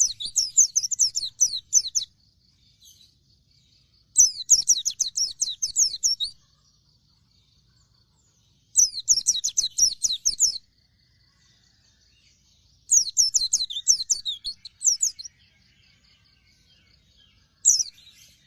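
A pleci dakun white-eye singing in bouts of rapid, high twittering, each about two seconds long and coming roughly every four seconds. A shorter bout starts near the end.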